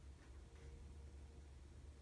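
Near silence: room tone with a steady low hum and a couple of faint clicks early on.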